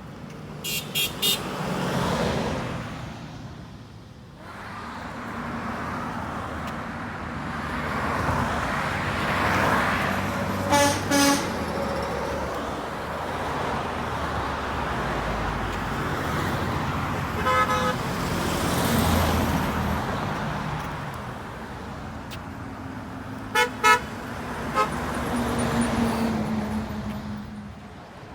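Passing trucks sounding short horn toots: three quick toots about a second in, a double toot near the middle, and another short cluster near the end, over steady road traffic noise that swells and fades as vehicles go by.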